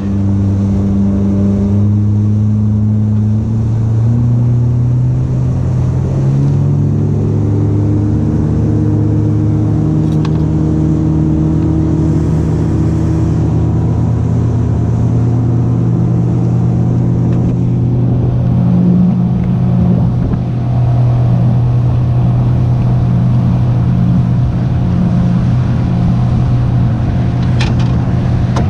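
Boat engine running under way, its pitch stepping up twice in the first several seconds as it speeds up, then holding steady.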